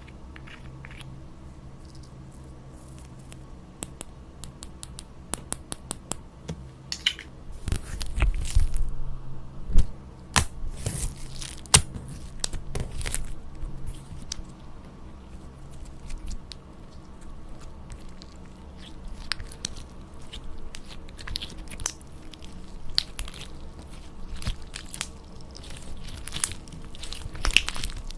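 Slime being squeezed and pressed by hand, giving runs of sticky crackling clicks and crunches. The crackling starts about four seconds in and comes in clusters.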